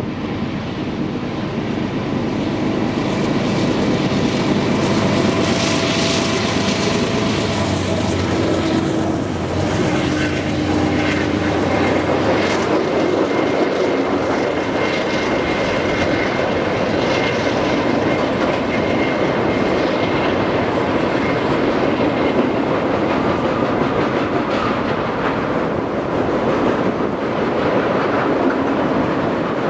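Freight train rolling past: a steady rumble of wheels on the rails with the clickety-clack of cars passing over rail joints.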